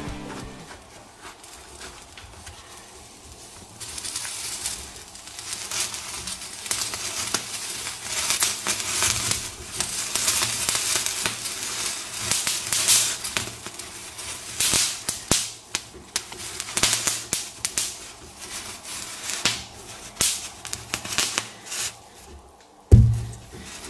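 Red-hot metal ball pressed against a watermelon's rind, the wet rind sizzling and crackling with irregular pops, starting about four seconds in. A single loud thump near the end.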